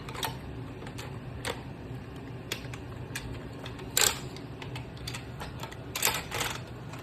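Hard plastic parts of a VTech Switch & Go transforming dinosaur toy clicking and snapping as they are turned and connected into place: scattered single clicks, the loudest about four seconds in, and a quick run of clicks about six seconds in.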